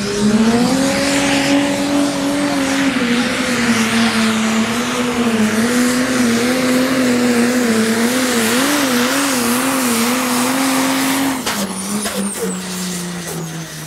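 Pro Stock pulling tractor's turbo-diesel engine under full load during a pull, its pitch rising just after the start and then holding high. Around nine seconds in it wavers quickly up and down, and a little past eleven seconds it falls in pitch and level as the engine backs off.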